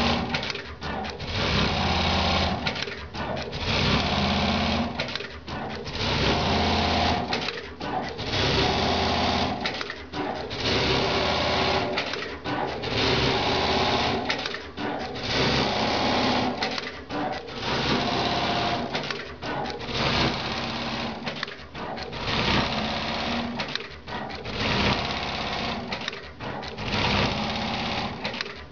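Brother BAS-342GXL industrial pattern sewing machine stitching at speed in short runs of about a second, each followed by a brief dip as it moves on, roughly one run every two seconds.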